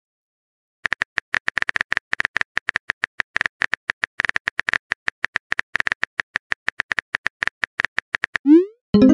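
Phone keyboard typing sound effect: rapid, irregular key clicks starting about a second in as a text message is typed, then a short rising swoop near the end as the message is sent.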